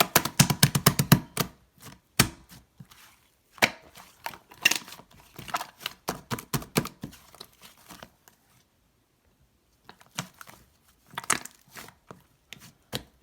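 Blue slime topped with shaving foam being squished and pressed by hand, giving runs of small crackles and pops, with a pause of about a second and a half a little past the middle.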